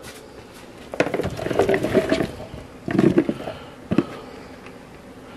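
Chopped vegetables (corn pieces, potato chunks, zucchini) tipped from a bowl into a slow cooker crock, tumbling and clattering in two bursts, then one sharp knock about four seconds in.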